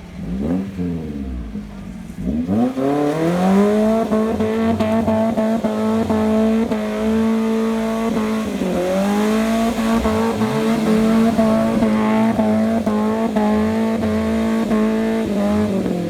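A 4x4 off-road vehicle's engine revved up hard and held at high revs for about thirteen seconds. The revs dip briefly once about midway, then fall away at the very end.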